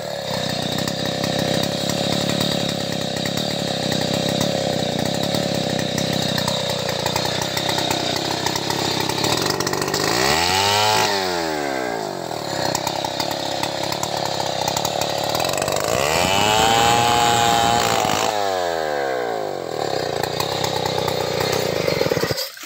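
Two-stroke chainsaw cutting a tangkil (melinjo) log, the engine running at high revs under load. Its revs swing down and back up about ten seconds in and again around seventeen to twenty seconds, and the sound cuts off suddenly just before the end.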